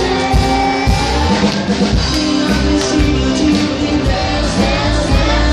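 Live band playing loud music, a drum kit beat under a man and a woman singing into microphones.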